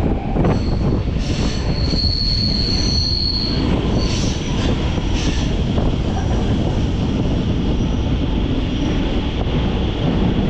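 MEMU electric train running with a steady low rumble. A high, thin wheel squeal sets in about half a second in and holds for about three seconds, followed by a few shorter squeals.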